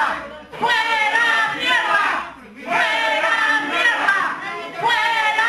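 Loud shouting or chanting voices in drawn-out phrases of about two seconds, with short breaks between them.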